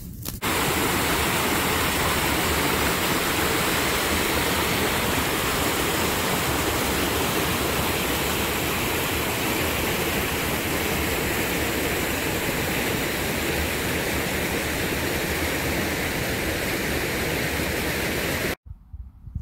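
Small mountain stream rushing over rocks in little cascades: a steady rush of water that cuts off suddenly near the end.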